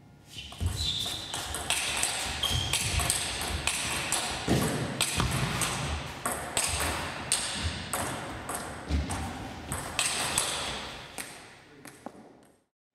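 Table tennis rallies: a quick series of sharp pings as the ball is struck by the bats and bounces on the table, dying away near the end.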